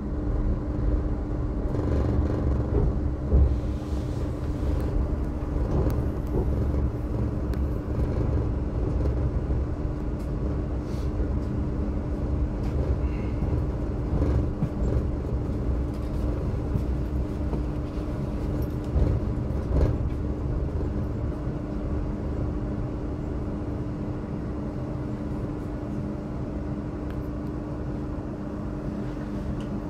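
Electric passenger train running, heard from inside the carriage: a steady low rumble of wheels on rail with a constant hum, a few sharp clicks, and the noise easing a little toward the end.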